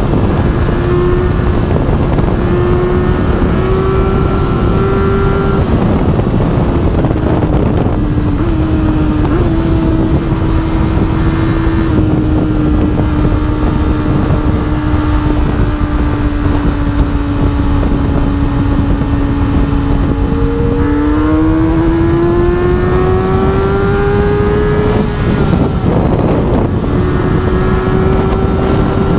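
A 2011 Kawasaki ZX-10R's inline-four engine running at highway speed under heavy wind rush on the microphone. The engine note eases down slowly through the middle, climbs as the bike accelerates about two-thirds of the way through, then dips and settles at a steady pitch near the end.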